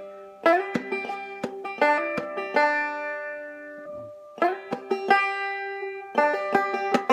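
Banjo tuned to double C, played clawhammer style with drop-thumb notes: bright plucked notes and brushed strums ringing out. The notes are left to ring and die away about three seconds in, then the picking starts again about a second later.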